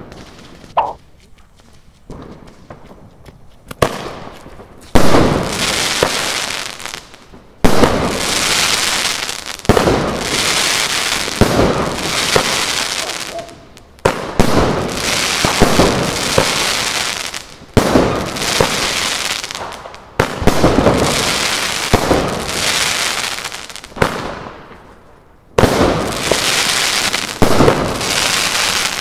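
Consumer fireworks battery firing: after a few faint pops, a series of loud bursts about every two seconds, each a sharp bang that spreads into a dense crackle lasting a couple of seconds, with a short pause near the end before the bursts resume.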